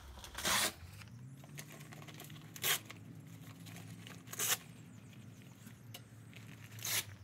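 Velcro hook-and-loop straps on bike-trailer panniers ripping, four short rips about two seconds apart, as the straps are worked around the trailer frame.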